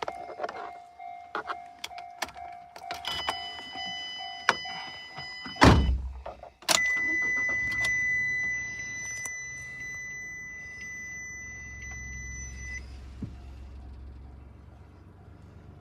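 Clicks and short electronic beeps, then a heavy thump about six seconds in. Right after it, the Nissan Dayz Roox's small three-cylinder kei-car engine starts and idles, settling down gradually, with a steady high electronic warning tone sounding over it for several seconds before it stops.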